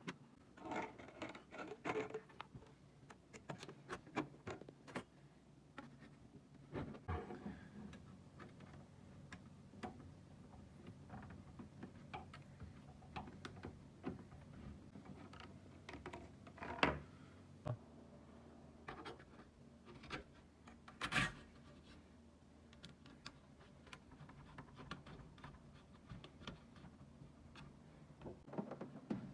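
Irregular clicks, scratches and knocks, like parts and tools being handled, with two louder knocks in the middle, over a faint steady hum.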